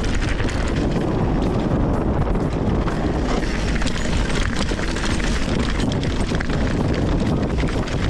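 Wind rushing over the microphone while riding a bicycle on a dirt track, mixed with many small rattles and clicks from the tyres and bike.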